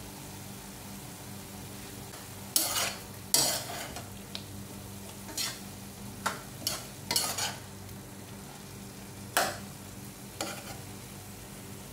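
Metal spoon stirring a stir-fry of lobster balls and long beans in a wok-style pan, scraping the pan in a series of irregular strokes while the food sizzles.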